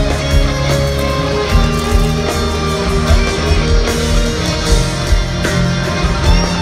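Rock band playing live without vocals: electric guitar playing sustained notes over bass guitar and drums.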